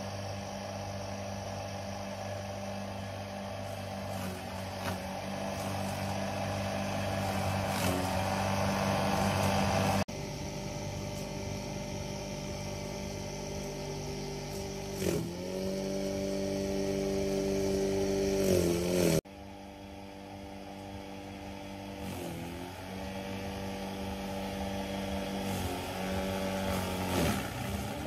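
Multipurpose crusher running steadily. Several times, starting about halfway through, its pitch dips briefly and recovers as the motor slows under load.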